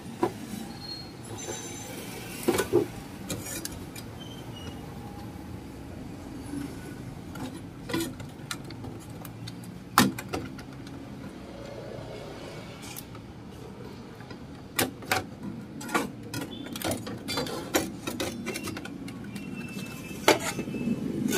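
Scattered clicks and metallic clinks of a screwdriver, screws and a circuit board being handled inside an amplifier's metal chassis as the main amplifier board is unscrewed and lifted out. The knocks come faster and closer together in the last third, over a steady low background noise.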